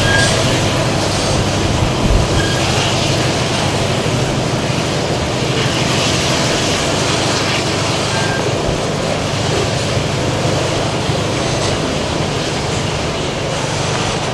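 Freight train of covered hopper wagons passing, with a diesel locomotive mid-train: a steady low engine hum under continuous rolling wheel-and-rail noise. A few brief high squeaks come through, about two and eight seconds in.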